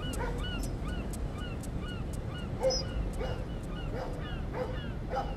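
Short animal calls repeating two to three times a second, each a quick high chirp, over a low steady rumble.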